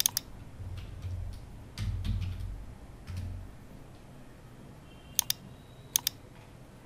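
Computer mouse clicks and keyboard typing: a sharp double click, then light key taps with low thuds for a couple of seconds, then two more quick double clicks near the end.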